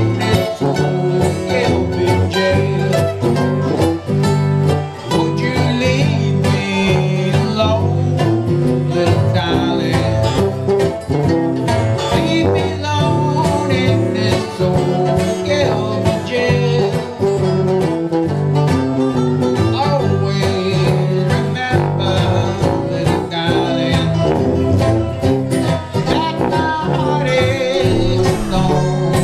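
Live string band playing a country tune with a steady beat.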